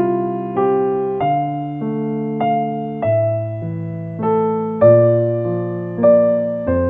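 Background piano music: slow, gentle chords struck about once a second, each note fading after it is played.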